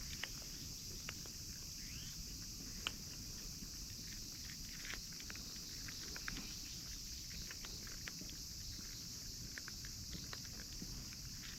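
Cats eating dry cat food: faint, irregular crunching clicks, over a steady high hiss.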